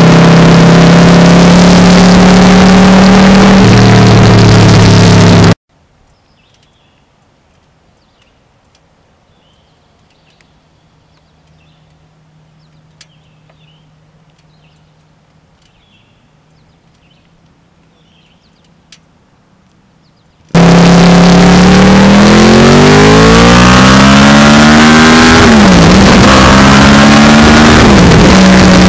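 2009 Yamaha R1's crossplane inline-four engine, heard from a camera beside its exhaust, running loud and steady at speed and dropping in pitch about four seconds in. It cuts to a quiet stretch with faint bird chirps. Then the engine comes back loud, rising in pitch as it accelerates, with two quick dips in pitch near the end as it shifts up.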